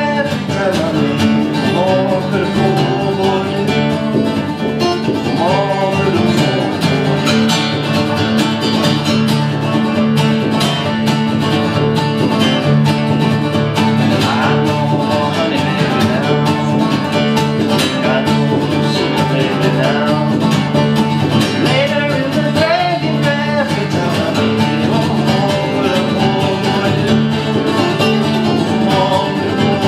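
Acoustic bluegrass band playing live: strummed steel-string acoustic guitars, picked banjo and upright bass in a steady country rhythm.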